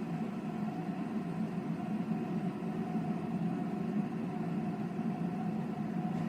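Hazel Quinn stainless-steel electric kettle heating water, a steady low rumble from the water on its way to the boil.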